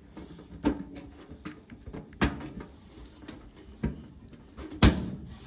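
Scattered sharp metal clicks and knocks as a patch panel clamp pin and a neodymium magnet are handled against the sheet-metal fender. There are about six of them, the loudest a sharp click near the end.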